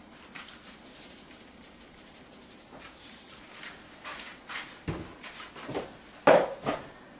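Faint hiss, then a handful of sharp clicks and knocks in the second half, the loudest near the end: kitchen containers and utensils being handled while salt and spices are added to a pan of tomatoes and vegetables.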